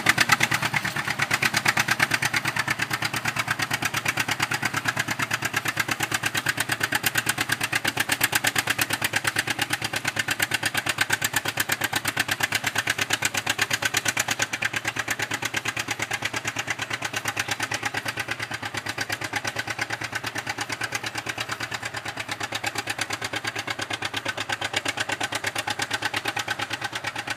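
Antique tractor engine running steadily under load as it pulls a plow, with a rapid, even exhaust beat. It grows slightly fainter as the tractor moves away.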